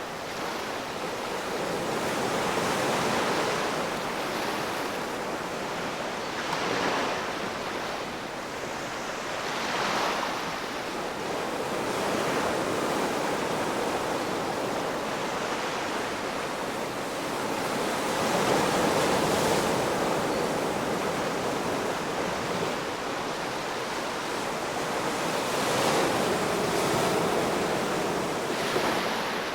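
Ocean waves breaking and washing on the shore, a steady rush of surf that swells and eases every few seconds.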